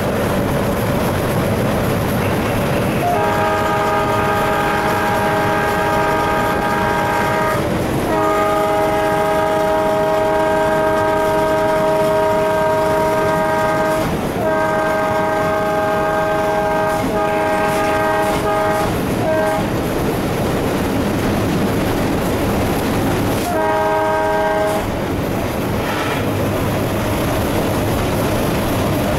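Alco WDM3D diesel locomotive's horn, heard from inside the cab, sounding a chord of several notes in three long blasts one after another, then a short blast near the end. Under it the locomotive runs steadily at speed, engine and wheels on the rails.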